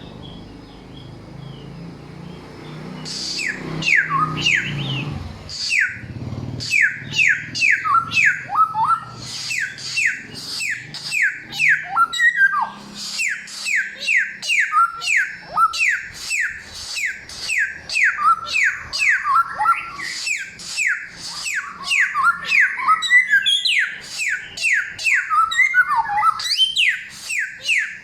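Songbird of the kind Indonesian bird keepers call samyong, singing a fast, loud run of short whistled notes that each slide down in pitch, mixed with lower twisting notes, starting about three seconds in.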